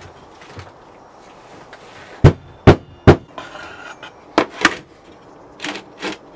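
Knocks on a metal mould flask of red casting sand on a metal tray as the sand is rammed into it: three heavy knocks about half a second apart, then two quicker lighter pairs.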